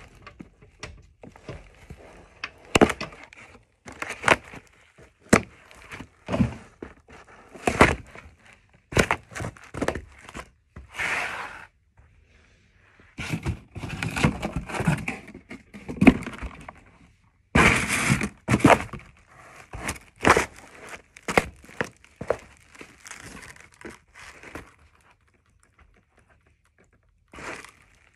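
Cardboard shoe boxes being stamped on and crushed flat under sneakers: a series of crunches, thuds and tearing cardboard. There is a short pause about twelve seconds in and a quiet spell near the end.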